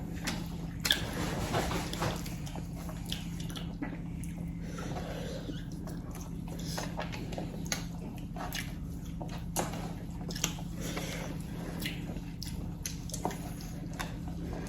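Close-up eating sounds: chewing chicken, with many short wet mouth clicks and smacks scattered throughout, over a steady low hum.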